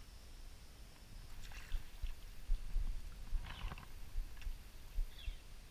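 Creek water sloshing and splashing in short bursts around a wader, twice clearly about a second and a half and three and a half seconds in, over irregular low thumps.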